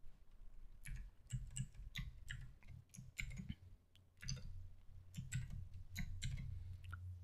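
Computer keyboard keys clicking faintly in an irregular run as a terminal command is typed, over a low steady hum.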